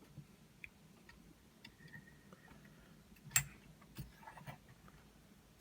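Faint, scattered metallic clicks of a curtain pick and overlifting wire working inside a 7-lever lock as the levers are lifted, with one sharper click a little over three seconds in.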